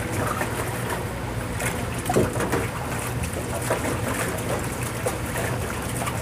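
Water running from a hose into a stainless-steel sink while gloved hands swish and rub buckwheat noodles in cold water, with repeated splashing. The noodles are being washed to rinse off their slipperiness.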